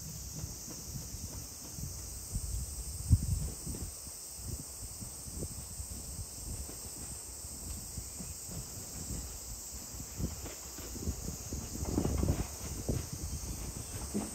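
Steady high-pitched insect chirring with low, uneven rumbling underneath. Over the last few seconds the ET127 series electric train's wheels and running gear grow louder as it creeps toward the camera on the station's switchback track.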